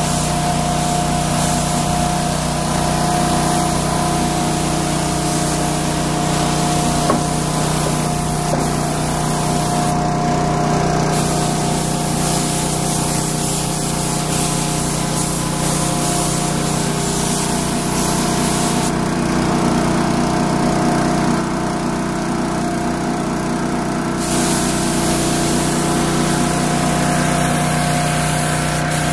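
Gravity-feed air spray gun hissing as it sprays a coating, over the steady hum of a running motor. The hiss shifts a couple of times along the way.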